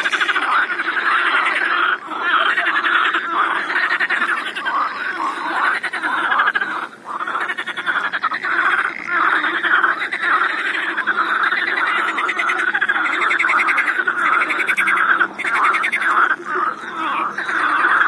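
A pond chorus of many frogs croaking at once, their calls overlapping into a dense, continuous chorus, with a brief lull about seven seconds in.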